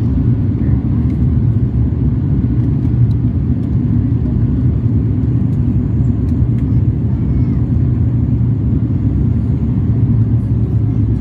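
Steady low drone of an aircraft's engines and airflow heard inside the passenger cabin during the climb after takeoff.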